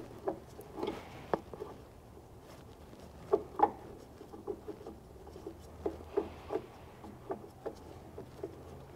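Irregular light clicks and knocks of a gloved hand turning and handling the hydraulic tank breather cap under the cab of a Cat 259D3 compact track loader, with two louder knocks close together about three and a half seconds in.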